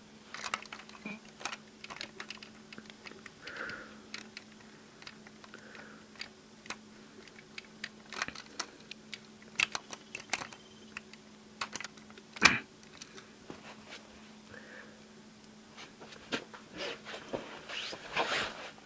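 Hard plastic toy-robot parts clicking and tapping as they are handled and fitted together: irregular small clicks, with one sharper snap about twelve and a half seconds in, over a faint steady hum.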